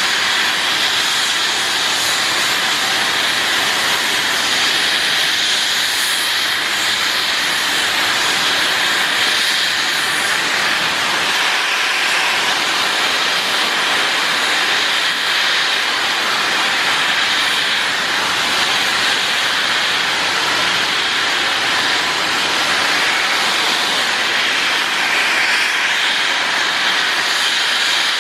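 LMS Stanier Black 5 4-6-0 steam locomotive venting steam low down in a loud, steady hiss that never lets up, with no exhaust beats. The steam cloud engulfs the microphone.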